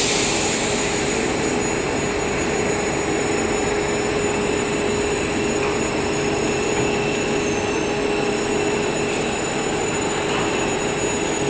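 Stretch film machine running, winding film onto a roll: a steady, even machine noise with a constant tone running through it.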